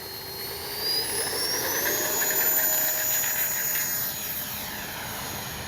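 64mm electric ducted fan of an Arrows F-86 Sabre RC jet spooling up for a takeoff run: a whine that rises in pitch over the first two seconds or so, then holds steady at high throttle.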